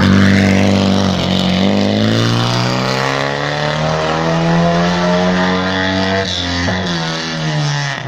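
Rally car engines revving hard on a stage. One car pulls away while the engine note of the next car rises and falls as it is driven through the revs, with a short break in the note late on and the pitch falling near the end.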